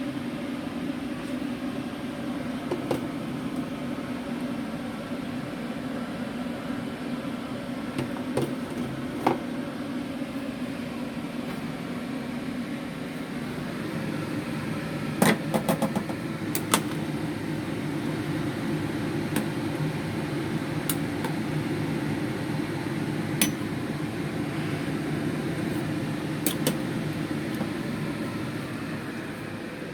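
A steady mechanical hum, like a running motor or appliance, rising slightly about halfway through. Scattered sharp clicks and knocks come over it, with a quick cluster about halfway through.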